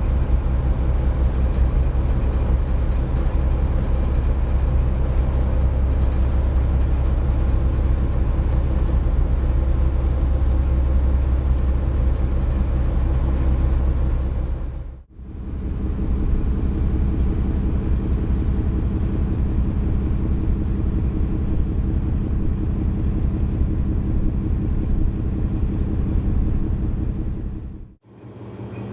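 Car ferry's engine running with a steady low drone, heard in two separate shots with a sudden break about halfway through.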